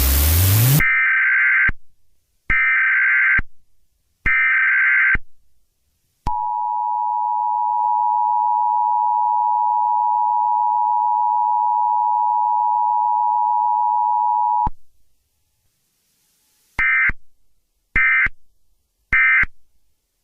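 Emergency Alert System alarm. A burst of static is followed by three digital header bursts of about a second each, then the steady two-tone attention signal held for about eight seconds, then three short data bursts near the end.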